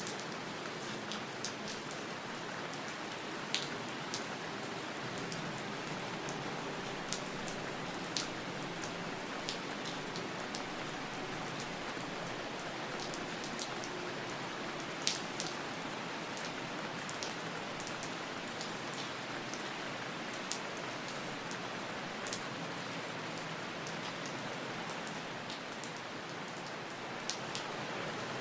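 Steady rain falling, a continuous hiss with individual drops ticking sharply here and there at irregular moments.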